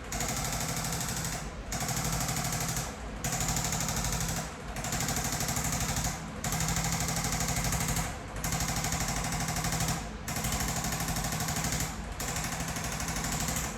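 Chiropractic impulse adjusting instrument (impulse gun) delivering rapid light tapping thrusts in bursts of about a second and a half, about eight bursts with short pauses between them.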